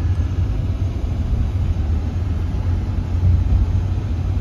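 Steady low rumble of a car's engine and tyres on the road, heard from inside the cabin while it is being driven.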